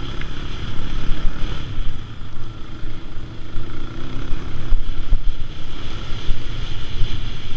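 Quad ATV engine running as it rides over a dirt trail, with wind noise on the microphone.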